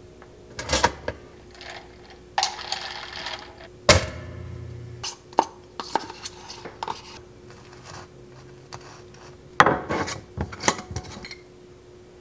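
Bagel-making sounds at a kitchen counter: scattered clicks, knocks and clinks from a pop-up toaster, a knife in a plastic cream cheese tub, and a spoon against a glass jar and plate. There is a short scraping spell about two and a half seconds in, a sharp knock about four seconds in followed by a brief low hum, and a cluster of knocks near the end.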